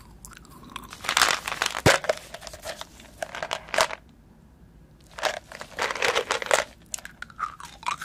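Close-miked crunching of candy being chewed: two bouts of loud, crisp crunches and clicks, the first starting about a second in and the second about five seconds in, with lighter clicks near the end.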